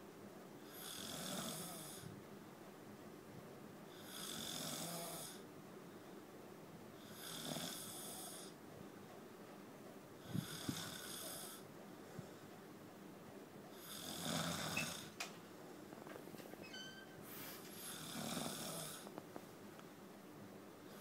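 Heavy snoring: six long snores at an even pace, one about every three and a half seconds, each lasting about a second.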